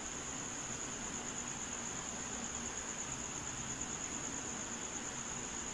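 Steady high-pitched insect trill, typical of a cricket, holding one pitch throughout over a low even hiss.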